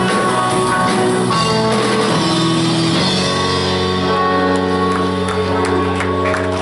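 Live rock band playing: electric guitar, bass guitar, drum kit and keyboard. After about three seconds the band holds one long chord, with drum and cymbal hits over it.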